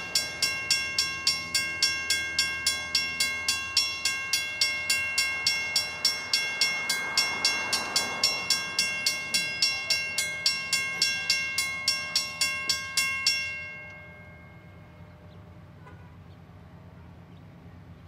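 Railroad grade-crossing warning bell ringing in quick, even strokes, about three and a half a second, as the crossing gates lower for an approaching train. The bell stops about thirteen seconds in, rings out briefly, and a steady low rumble remains.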